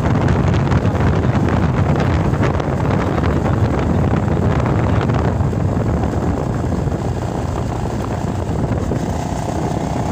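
Wind buffeting the microphone of a moving vehicle, a steady rushing noise with the engine and tyre noise underneath.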